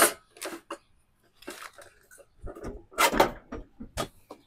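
Handling noise as equipment is moved about on a table: a series of short, irregular knocks and clatters with some rustling. The loudest knock comes right at the start, and a louder cluster comes about three seconds in.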